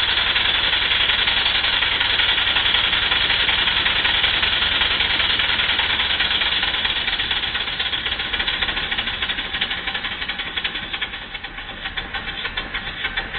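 Stuart Double 10V twin-cylinder vertical model steam engine running fast on compressed air, with a rapid, even exhaust beat and the rattle of its valve gear. Its valve timing is set for slightly early admission. In the last few seconds it slows a little and the exhaust beats come apart into separate puffs.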